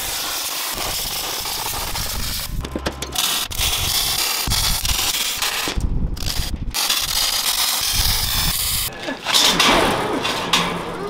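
Sheet-metal fabrication on a steel frame, heard in quick edited cuts: a steady hissing, grinding noise at first, then a run of short clanks and knocks broken by abrupt cut-offs.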